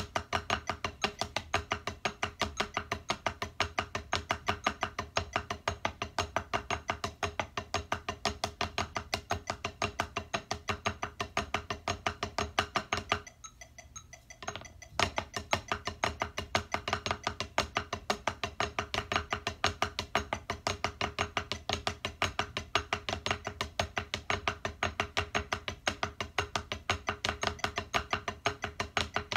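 Wooden drumsticks played on a rubber drum practice pad: a fast, even run of strokes that stops for about two seconds near the middle, then starts again.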